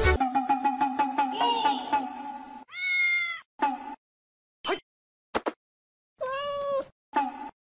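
Domestic cat meowing: one drawn-out meow about three seconds in and another near six and a half seconds, with short, clipped calls between and after. Before the meows comes a steadier, lower sound that cuts off abruptly.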